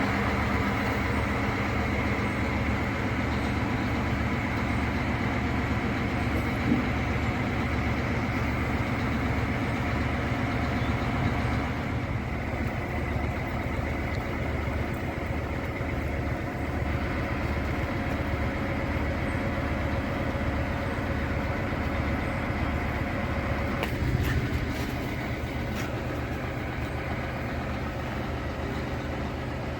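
A large engine idling steadily with a regular low throb, with a brief knock about 24 seconds in.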